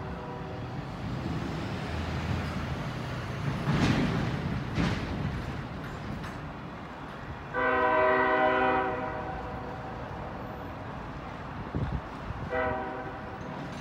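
Air horn of an approaching Union Pacific freight locomotive sounding for grade crossings: one blast cuts off just after the start, a long blast comes a little past halfway, and a short blast comes near the end. A brief rushing noise swells about four seconds in.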